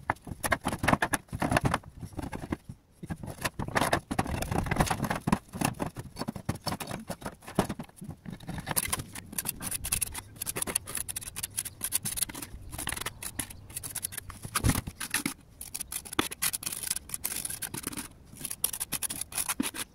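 A busy run of clicks and scrapes from clay roof tiles being handled and set back in place, and from a trowel scraping ridge pointing compound.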